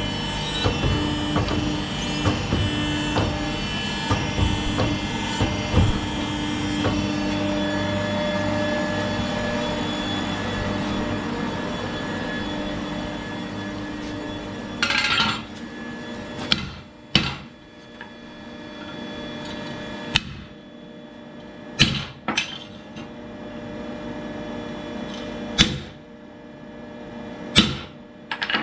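Steady electric machine hum with a few held tones and light knocking for about the first half; then the hum falls away and about eight sharp metal clanks follow, one to three seconds apart, as hot steel is worked on the machinery.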